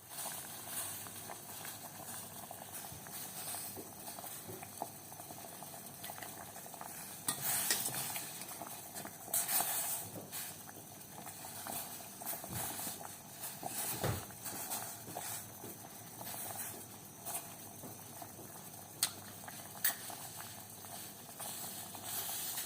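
A pot of pomegranate peels and ginger in water boiling steadily, a bubbling hiss, with a few short louder bursts scattered through.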